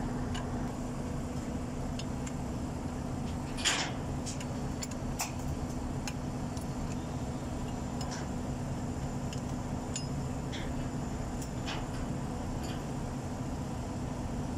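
Steel box-end wrench clicking and scraping on bell-housing bolts as they are loosened, with one brief louder scrape about four seconds in, over the steady hum of an idling engine.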